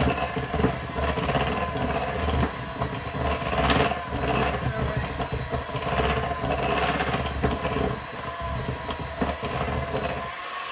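Electric hand mixer running, its beaters whipping frosting in a glass bowl with a steady motor whine; the motor switches off suddenly near the end.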